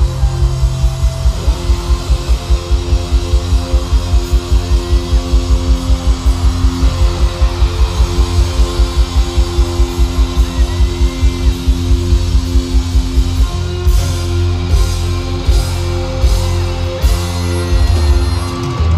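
Live band playing loud rock-style music: a rapid, even drum pulse of about four or five beats a second under sustained guitar chords, then from about three-quarters of the way in a run of heavy drum and cymbal hits as the song comes to its close.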